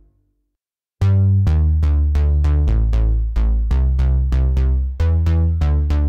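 Reveal Sound Spire software synthesizer playing a bass preset: a sequence of short, punchy low notes, about four a second, each starting bright and quickly darkening. The sequence starts about a second in, after a moment of silence.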